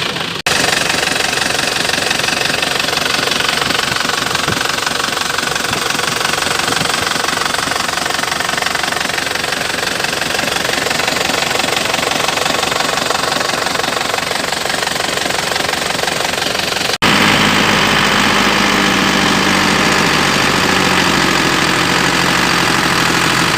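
Isuzu Panther diesel engine running on test after an engine rebuild. The sound breaks off briefly twice, just after the start and about 17 seconds in, and after the second break the engine runs with a steadier, more even note.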